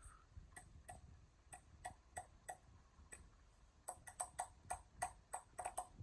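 Blades of a Hampton Bay Huntington III ceiling fan striking a finger held in their path: sharp ticks, a few spread out at first, then coming quickly, about six a second, from about four seconds in as the fan speeds up on forward. The rate of the taps gives the fan's speed.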